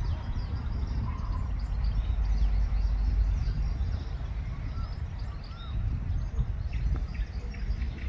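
Wind buffeting the microphone in a low, uneven rumble, with birds chirping and calling over it.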